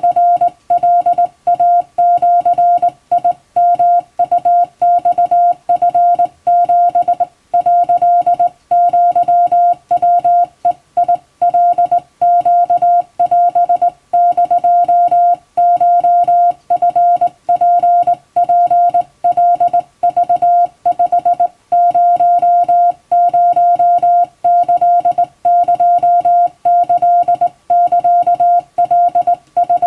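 Japanese wabun Morse code sent by hand on a telegraph key: a steady beep at one pitch keyed on and off in a continuous run of dots and dashes with short gaps between characters.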